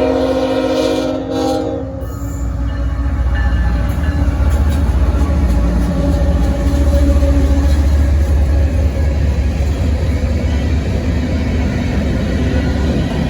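Diesel freight locomotive's air horn sounding a chord of several tones, cutting off about two seconds in, followed by the heavy low rumble of the locomotives and train rolling past.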